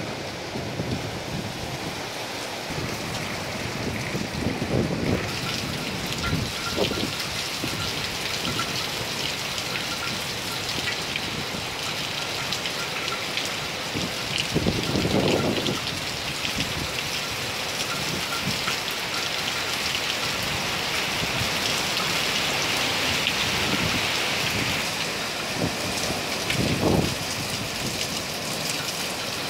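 Heavy typhoon rain falling steadily, growing heavier about five seconds in. Several brief low rushes of wind gust over it.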